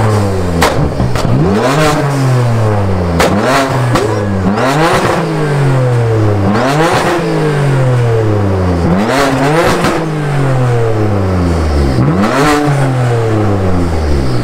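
BMW M3's S55 twin-turbo inline-six, fitted with VRSF downpipes and an always-open AWE track exhaust with no valves, revved hard about seven times. Each rev shoots up quickly and then falls back slowly.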